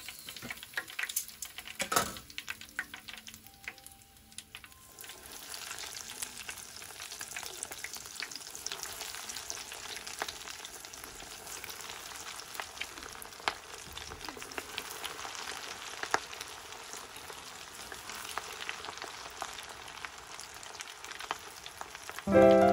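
Breaded shrimp deep-frying in hot oil: a steady sizzling crackle with scattered pops. The sizzling dips a few seconds in, then picks up and runs steady. Piano music comes in right at the end.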